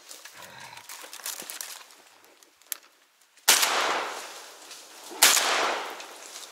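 Two shotgun shots about a second and three-quarters apart, each a sharp crack followed by an echo that dies away over about a second.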